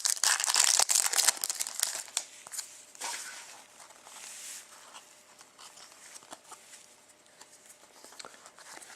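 Trading-card pack wrapper crinkling as cards are handled, loudest and densest over the first two seconds, then fainter rustling and sliding of cards.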